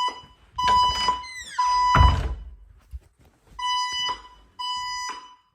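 Fire alarm evacuation tone: a steady, buzzy tone sounding in the temporal-three pattern, three short pulses, a pause of about a second and a half, then three more. A low thump comes about two seconds in.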